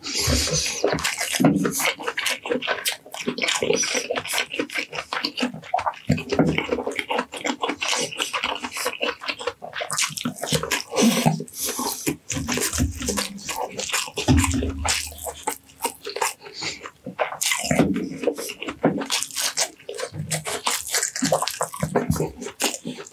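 Close-miked wet chewing and lip-smacking of a person eating baked meat with his hands, with squelchy, sticky sounds of fingers pulling at the meat. The sounds come as a dense run of irregular clicks and smacks.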